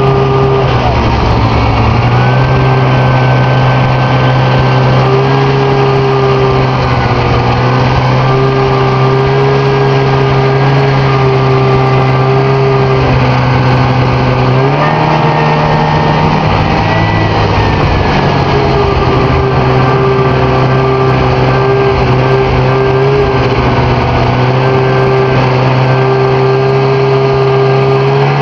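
Snowmobile engine running close up while riding. Its pitch rises about halfway through and settles back a few seconds later.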